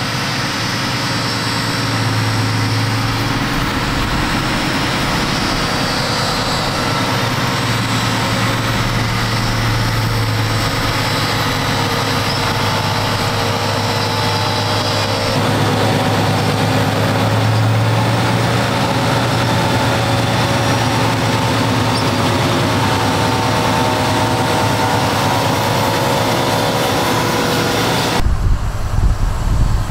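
Fendt 939 Vario tractor engine running steadily under load while pulling a planter, a constant low hum with steady higher tones over it. The sound changes abruptly about halfway through, and again near the end, where the low rumble grows louder and uneven.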